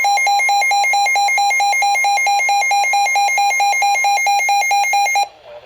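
Loud electronic emergency alert tone rapidly alternating between two pitches, about five to six times a second, cutting off suddenly about five seconds in.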